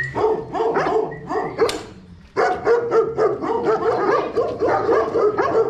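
Serra da Estrela livestock guardian dogs barking in their kennel runs, a rapid run of overlapping barks that gets louder a little over two seconds in.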